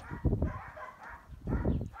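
Dogs barking and yipping in short calls, with two louder low rumbling bursts, one about a quarter second in and one near the end.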